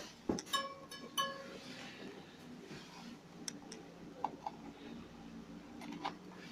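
Two short ringing clinks of a hard object about two-thirds of a second apart, followed by a few light clicks and taps.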